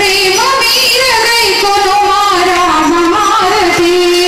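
A woman's voice singing a slow Indian devotional melody, holding long notes that waver and glide between pitches, typical of an aarti song sung while the lamps are offered.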